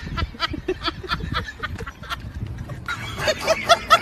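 People laughing in quick repeated bursts over bumps and scuffling. The laughter grows louder near the end.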